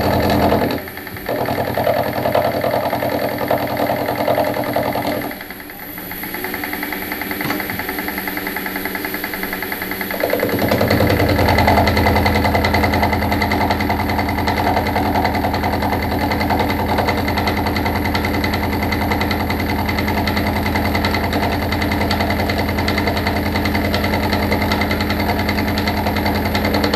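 Metalworking machine tool running steadily, with a motor hum and cutting noise as it works a metal part. It goes quieter for a moment about a second in, drops away from about five to ten seconds in, then runs on at full level.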